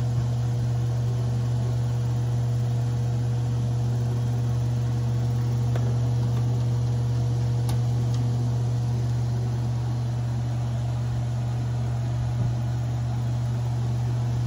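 Blower fan of a 1953 Fedders Weather Bureau window air conditioner running steadily just after switch-on, with a strong low hum under the rush of air. Its power draw is falling as it runs, which the owner takes for the old blower motor starting to loosen up.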